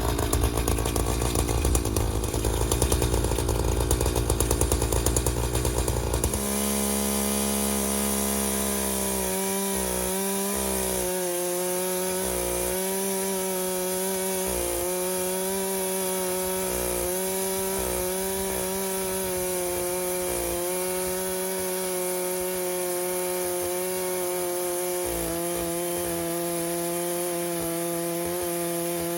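Chainsaw running under load as it cross-cuts a large red oak log in a homemade chainsaw mill. The sound is rough and uneven at first; about six seconds in it changes suddenly to a steady, evenly pitched running tone that wavers slightly now and then.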